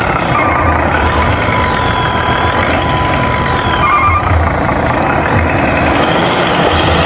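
Truck sounds: an engine running steadily under short electronic beeps and a held tone in the first half, with high sliding whistle-like tones over the top.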